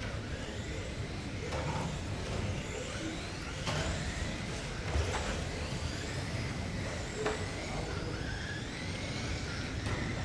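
Several 1/12-scale GT12 electric RC pan cars racing on carpet, their electric motors whining up and down in pitch as they accelerate and brake. A few sharp knocks come through among the whining.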